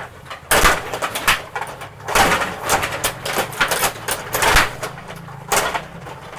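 Rod hockey game in play: rapid clacking and rattling of the rods and player figures striking the puck and each other. It comes in clustered flurries, about half a second in, from about two to five seconds in, and again near the end.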